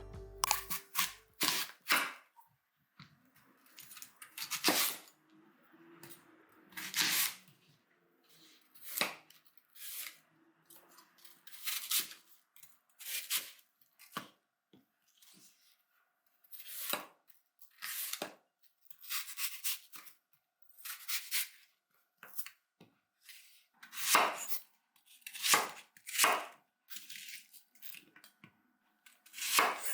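Knife cutting food on a cutting board: irregular short strokes, about one every second or two, in kitchen preparation for apple French toast.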